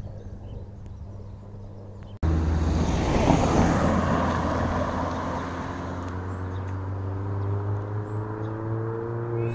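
A van drives past close by, its tyre and road noise loudest about three seconds in, then its engine note climbs steadily as it accelerates away.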